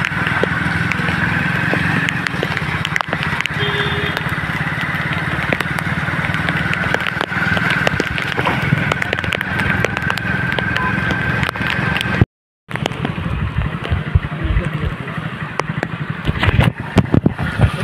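Motorcycle ride on a rain-soaked, waterlogged road, heard from the pillion seat: steady engine and road noise with a steady thin whine, and wind crackling on the microphone. The sound drops out completely for a moment about two-thirds of the way through.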